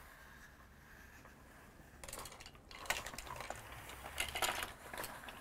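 Plastic Hot Wheels Lift & Launch toy car hauler being moved by hand. From about two seconds in comes a run of clicking and clattering from its plastic parts and the small die-cast cars riding on it.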